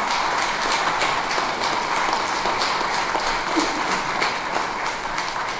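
An audience applauding: dense, steady clapping that tapers off near the end.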